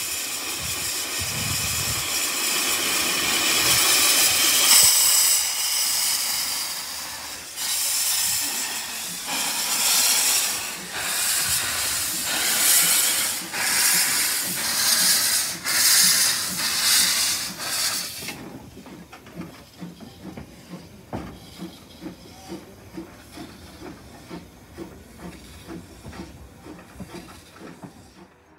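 Narrow gauge saddle-tank steam locomotive hissing steam loudly, then chuffing in steady beats about every second and a half as it gets under way. After about 18 seconds the sound drops to faint, quick rhythmic beats as it draws away.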